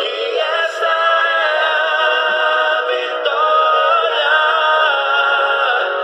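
Background music with voices singing long held notes at several pitches at once, without bass.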